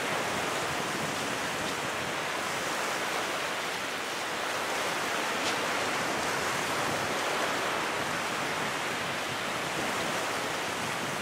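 Steady rushing noise of wind and small surf breaking along the shore.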